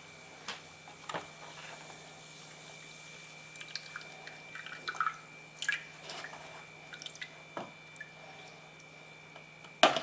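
Scattered light clicks and taps over a steady hum, with a sharper, louder knock near the end.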